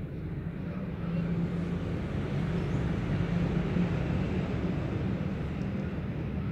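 Low, steady rumble of a motor vehicle engine, growing louder about a second in and holding.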